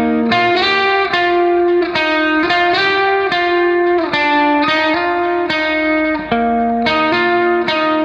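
Background music: a melody of plucked notes, picked one after another at an even pace, each note ringing and fading.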